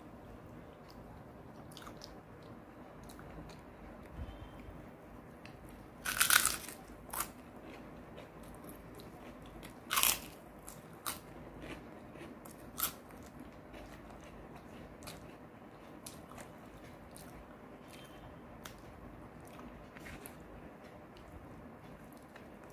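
Crisp fried papad (papadum) being bitten and crunched in the mouth: a handful of sharp crunches, the loudest about six seconds in and others up to about thirteen seconds in, with soft chewing between.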